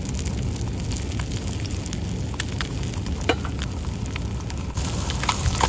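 Fish fillets frying in oil in a small stainless steel skillet on a camp stove: a steady sizzle with scattered small pops, getting louder about five seconds in, over a steady low rumble.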